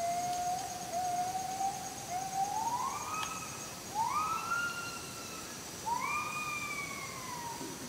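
A series of long pitched animal calls: a few level notes, then three notes that each rise and slowly fall, over a thin steady high-pitched drone.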